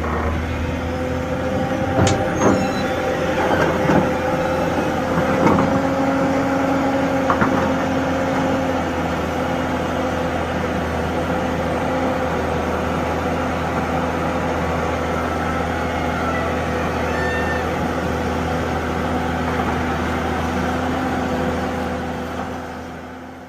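Heavy diesel engine of earthmoving machinery running steadily at high revs, with a few sharp metal clanks in the first several seconds; the sound fades out near the end.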